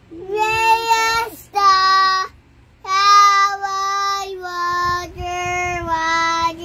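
A young girl singing a tune in long, held notes, in phrases with a short break a little past two seconds in.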